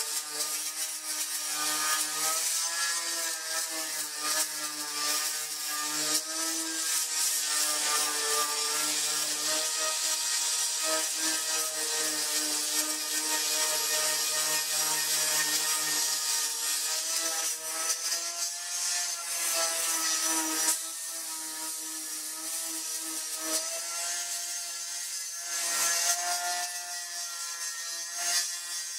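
Electric angle grinder with an abrasive sanding disc stripping paint from a car door down to bare metal: a steady motor whine whose pitch dips and recovers as the disc is pressed and eased, over a gritty rasp of abrasive on metal. About two-thirds of the way through it becomes quieter.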